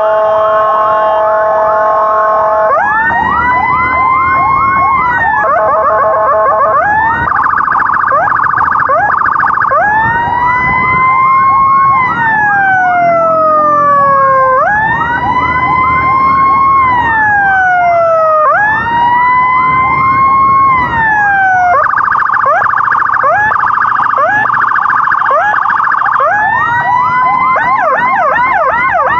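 Loud electronic emergency siren cycling through its tones. It opens with a steady multi-tone blare, then alternates long wails that rise and slowly fall with stretches of fast warbling yelp.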